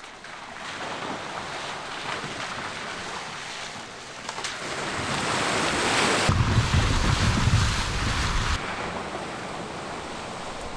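Toyota hatchback driving through muddy puddles on a dirt road, its tyres splashing and throwing up water. The splashing builds as the car passes close, about six seconds in, with a heavy low rumble for about two seconds, then fades as it drives away.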